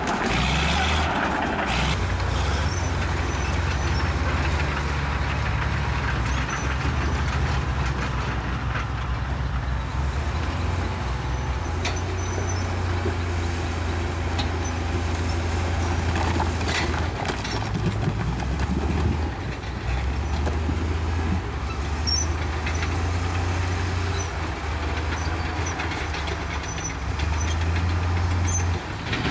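Bulldozer's diesel engine working under load, its steady low drone shifting up and down in pitch every few seconds, with occasional knocks and clanks.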